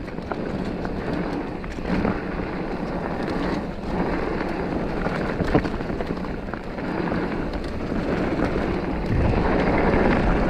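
Mountain bike riding over a dirt trail: a continuous rough rumble of tyres and bike rattle, with scattered sharp knocks and wind buffeting the microphone.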